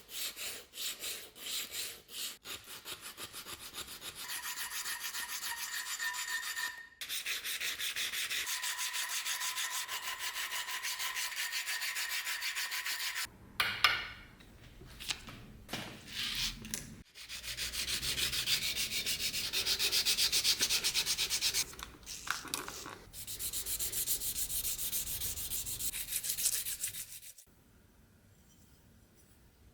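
Fast back-and-forth hand abrasion on the knife, in long runs of rubbing strokes. A few short handling knocks fall between the runs partway through, and the rubbing stops near the end.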